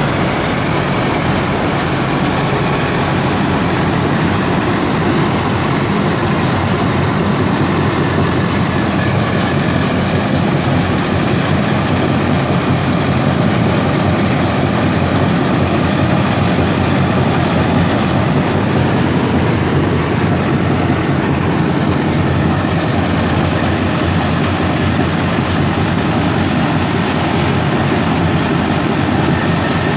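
Tractor-mounted combine harvester at work: the Sonalika WT60 tractor's diesel engine runs steadily under load, driving the header and threshing machinery as it cuts the standing crop, in a continuous dense mechanical din with a low engine hum.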